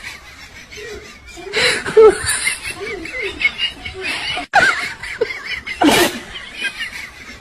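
People laughing in loud bursts, about two seconds in, near the middle and about six seconds in, with quieter chuckling between them.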